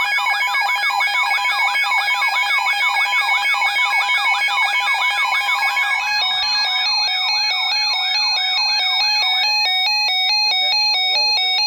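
Electronic siren and alert tones: a yelping sweep repeating about four times a second over steady high tones, switching about halfway through to a fast alternating two-tone pattern, with a tone gliding upward near the end.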